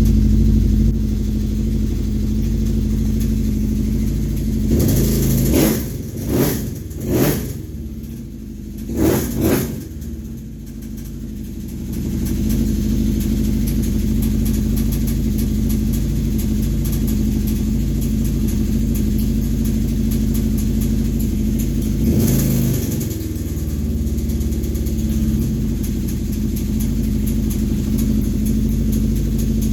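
Kawasaki Brute Force 750 ATV's V-twin engine idling with a fast, even ticking rattle. The throttle is blipped several times in quick succession between about five and ten seconds in, and once more about 22 seconds in. The click-tick-rattle is the sign of a blown crankshaft bearing.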